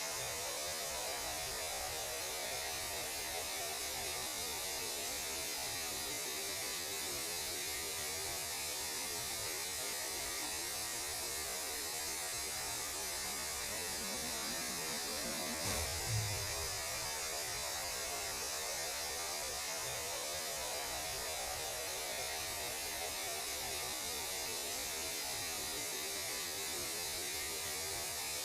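Steady hissing static with an underlying hum and a churning, warbling texture: space radio noise rendered as sound. A short low thump about sixteen seconds in.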